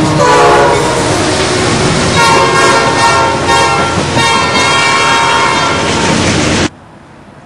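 Norfolk Southern diesel locomotives passing close at speed with heavy rumble and rail noise, the air horn sounding. Its pitch falls as the lead unit goes by, then two long steady blasts follow. The sound cuts off abruptly near the end, leaving a much fainter background.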